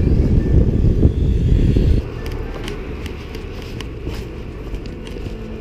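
Outdoor street sound on a chest-mounted GoPro Hero4: a heavy low rumble of wind and traffic on the microphone for about two seconds, then an abrupt drop to quieter street ambience with scattered light clicks.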